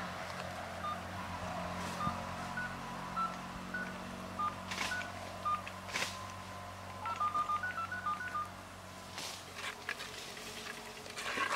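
Spoon scraping and knocking in a clay cooking pot, a few short scrapes. Short, high beeping notes come at irregular intervals and bunch together after about seven seconds, over a steady low hum.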